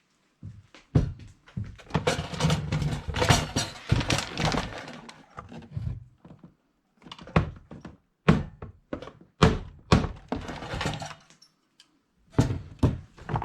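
Irregular knocks, thunks and clatter of tools and hands working on the plastic housing of an Easy Bake toy oven during disassembly.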